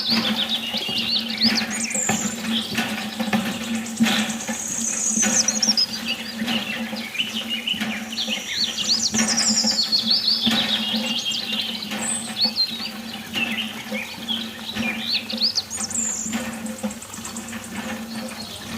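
Birds chirping in quick repeated calls, over a steady low hum.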